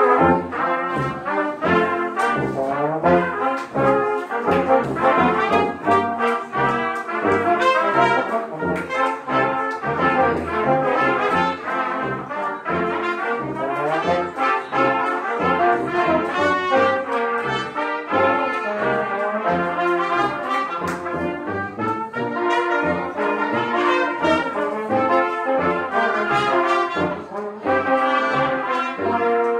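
Live brass ensemble of trumpets, French horn, trombone and tuba playing a lively piece. The tuba sounds short bass notes in an even pulse under the higher brass. The music starts suddenly at the beginning.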